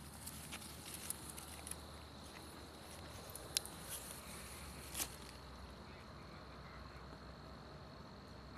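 A faint, steady, high-pitched insect trill. Over it come scattered rustles and sharp clicks as the paper-bagged flowering stalks are handled, the loudest about three and a half and five seconds in.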